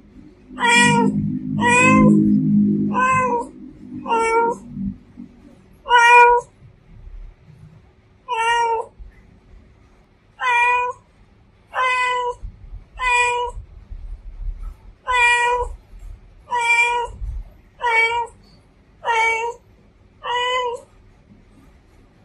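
Female domestic cat meowing repeatedly: about fourteen short calls, a second or two apart, each wavering in pitch.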